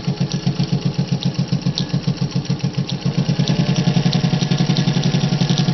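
1950 Singer 201 straight-stitch sewing machine running at speed, stitching through thick bonded garment leather with an even beat of about nine to ten stitches a second. It gets a little louder and quicker about three seconds in.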